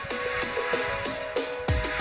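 Background electronic music with steady held tones and deep bass hits that fall in pitch, one near the end.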